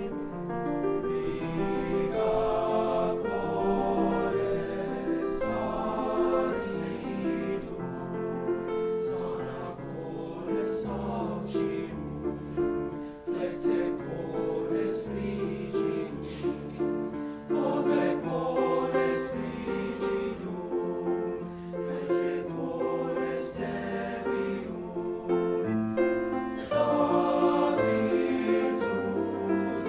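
Men's choir singing in parts, accompanied by grand piano.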